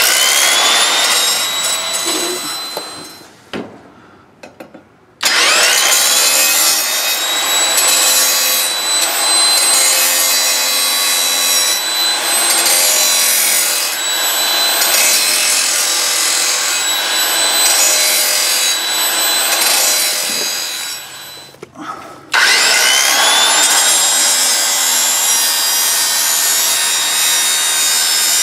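Large electric angle grinder grinding the steel edge of a riding mower blade to sharpen it, with a high whine. It winds down and stops twice and starts again each time, about five seconds in and about 22 seconds in, with a rising whine as it spins back up.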